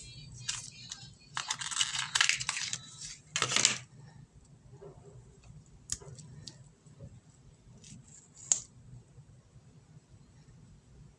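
Product packaging being handled and torn open by hand: a few bursts of crinkling and tearing in the first four seconds, the loudest just before the four-second mark, then a couple of sharp clicks later on.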